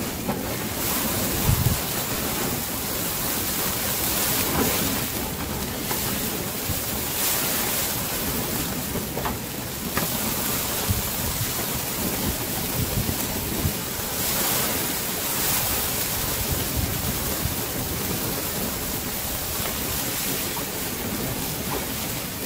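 Fish sizzling in a hinged wire grill basket over a charcoal fire, a steady noisy hiss, with wind rumbling on the microphone now and then.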